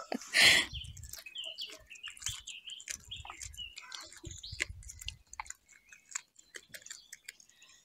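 A cat chewing and biting raw crucian carp in a bucket: a run of small, irregular wet clicks, with small birds chirping in the background. A brief loud rustle comes about half a second in.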